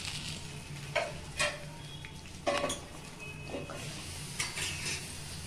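A metal ladle clinking against a metal rice-cooker bowl several times as the fried tempering is stirred into the rice and water, over a steady low hum.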